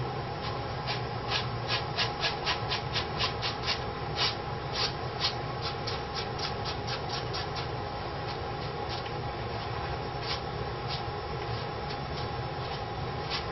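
Paintbrush working oil paint onto canvas in short dabbing, scrubbing strokes, about four a second through the first half and sparser later, over a steady low hum.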